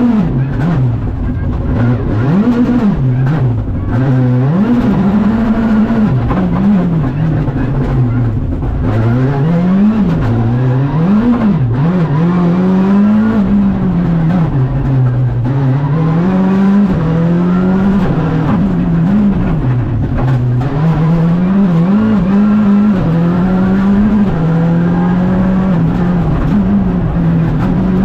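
Škoda Fabia Rally 2 Evo's turbocharged 1.6-litre four-cylinder engine, heard from inside the cabin at full rally pace. The revs climb and drop again and again through quick gear changes, braking and acceleration.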